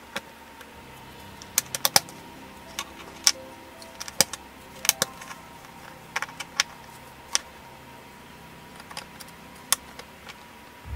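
Lego bricks and plates clicking and snapping together as pieces are pressed on by hand: a series of sharp, irregular clicks, several close together around two and five seconds in.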